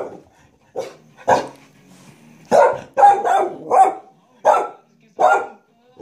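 A dog barking at a vacuum cleaner: about nine barks, two single ones, then a quick run of four or five in the middle, then two more spaced apart.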